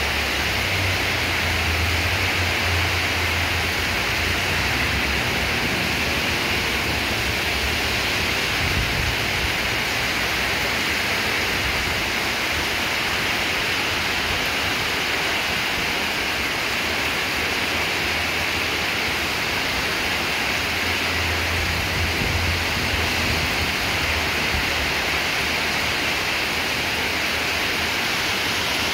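Heavy rain pouring down in a dense, steady hiss, with a low rumble twice: about a second in and again just past twenty seconds.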